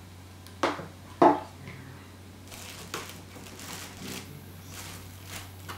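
Unboxing handling: two sharp knocks about half a second apart near the start, then a few seconds of rustling and handling of the packaging.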